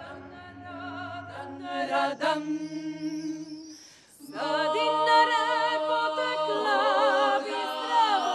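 Women's klapa choir singing a cappella, several voices in close Dalmatian polyphony holding long chords with vibrato. They break off briefly about halfway, then come back in louder with a fuller chord.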